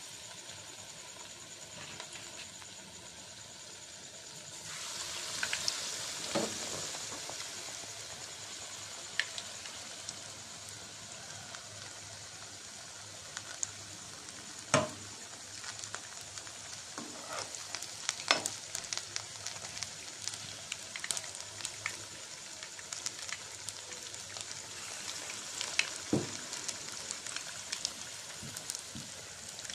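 Batter-coated ridge gourd slices deep-frying in hot oil in a wok: a steady sizzle with scattered crackles and a few sharper cracks. The sizzle grows louder about four seconds in, as more slices go into the oil.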